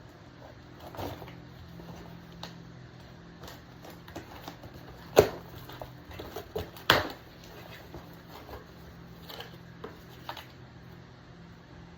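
Small clicks and handling knocks, with two sharper, louder knocks about five and seven seconds in, over a faint steady hum.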